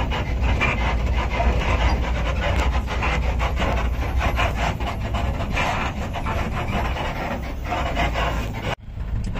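Wind buffeting the microphone over the rumble of a jeep driving on a rough forest track, a dense rough rasping noise. It cuts out abruptly for a moment near the end.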